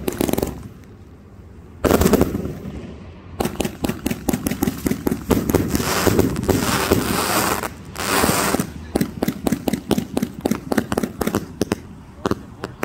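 A 191-shot firework cake firing in rapid volleys of sharp reports. It gives two short volleys at first, then fires almost without a break from about three seconds in, thickening into dense stretches in the middle. Near the end it thins to separate shots.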